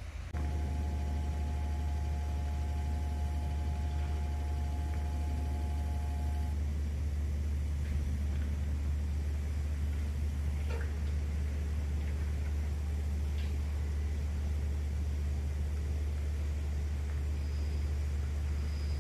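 Diesel railcar engine idling at the platform, a steady low rumble. For the first six seconds two steady high tones sound over it, then stop.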